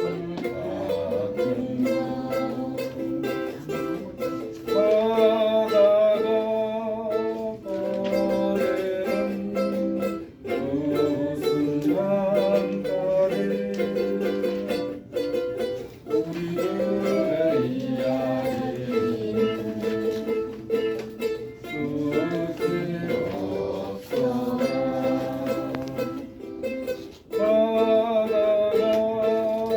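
Background music led by plucked strings, with a melody line over steady chords.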